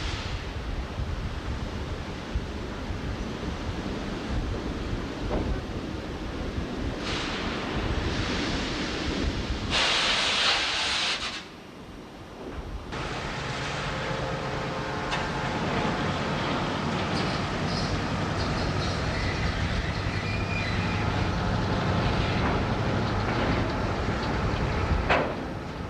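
Steady rumble and noise of heavy industrial machinery. About ten seconds in there is a loud hiss lasting over a second, then a brief drop, after which a steady low hum runs under the noise.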